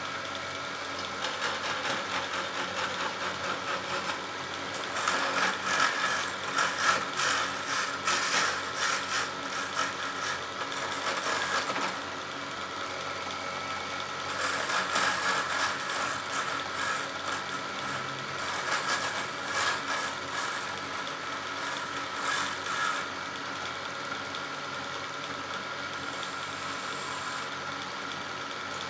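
Wood lathe running steadily while a hand-held gouge cuts the spinning wood blank. The cutting comes in three longer stretches of scraping and chatter, and between them only the lathe's steady running is heard.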